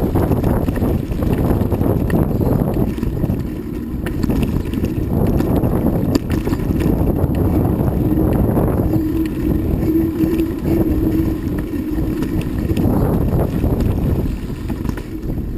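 Wind rushing over the microphone of a moving bicycle rider: a steady low rumble with no engine note.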